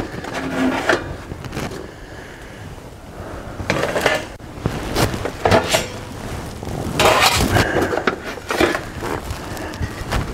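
Galvanized sheet-metal nest box parts and plastic pieces being handled and set into place on a concrete floor: clanks, light rattles and knocks that come and go several times.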